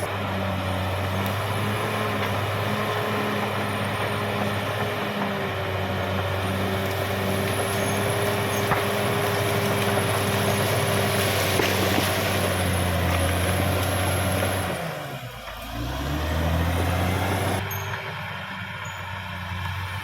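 Caterpillar D6R XL crawler bulldozer's diesel engine running steadily under load. About three-quarters of the way through, the engine speed dips briefly and then picks back up.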